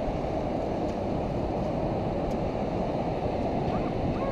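Steady rush of wind and surf on the beach, with wind buffeting the microphone, and a few short wavering tones near the end.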